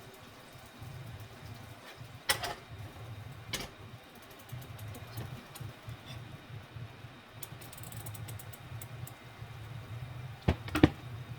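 A few sharp clicks and knocks over a low steady hum, the loudest two coming close together near the end.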